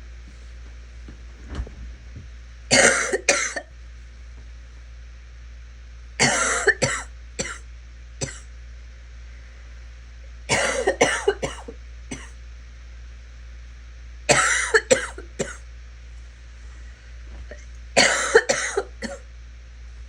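A sick, congested person coughing in five short fits about every four seconds, each fit two to four quick coughs.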